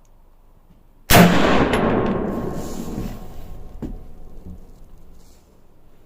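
A single gunshot, loud and sudden, with a long echo that fades over about four seconds. A faint sharp click follows a few seconds after the shot.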